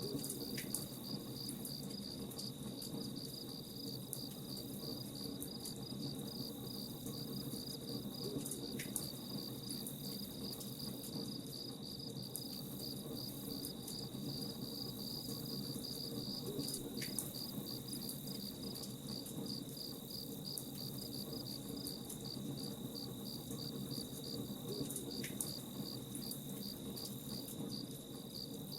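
Crickets chirping in a steady, rapidly pulsing high trill, over the low noise and scattered faint crackles of a campfire.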